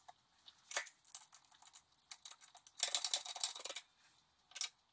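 Metal parts clicking and rattling as they are handled on a hydraulic shop press: a piston and connecting rod being centered over a pin-pushing ring, and the bottle jack's pump handle being fitted. Scattered clicks, with a denser run of rattles about three seconds in that lasts about a second.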